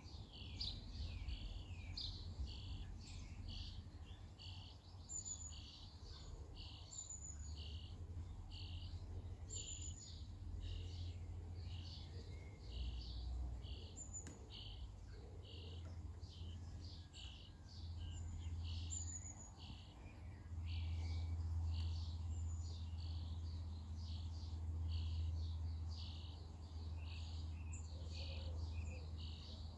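Baby birds in a nest under the house eaves giving short, high begging calls over and over, about two a second, with a few higher chirps among them. A steady low rumble runs underneath and grows louder in the second half.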